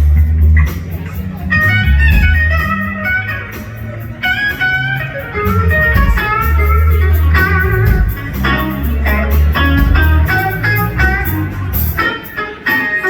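Electric blues band playing live: a lead electric guitar plays a line of short, bending notes over bass guitar.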